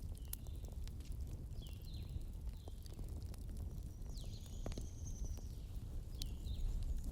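Wood fire crackling with scattered sharp pops over a low rumble of the flames. Short high chirping whistles come every second or so, with one longer whistle about four seconds in.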